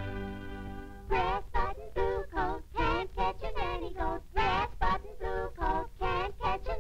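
Cartoon soundtrack: a held musical note for about the first second, then high, childlike cartoon voices (the kittens) singing a quick run of short syllables.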